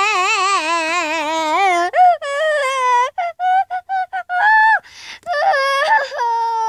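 A child's high-pitched pretend crying: long wailing sobs with a wavering pitch, broken in the middle by a run of short sobbing bursts, then wailing again.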